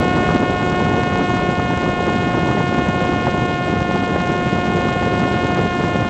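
Parrot Disco fixed-wing drone's electric pusher motor and propeller running at full throttle during the climb-out, a steady high whine held at one pitch, over heavy wind rush on the onboard microphone.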